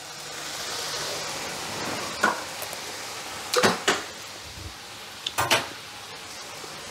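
A spoon clinking and scraping against cookware: one clink about two seconds in, then two short clusters of sharp clinks, over a faint steady sizzle from stir-fried greens in a wok.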